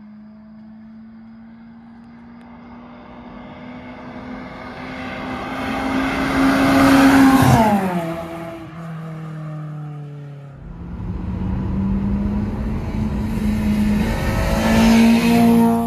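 Honda Civic GL (EC9) with its dual-carburettor 1.4 D14A1 four-cylinder and a straight-through exhaust, silencers removed, accelerating toward and past: the note rises and grows louder to a peak about seven seconds in, then drops in pitch and fades as the car goes away. After a cut, a car engine revs up again, heard from inside a car on the move, with a gear change near the end.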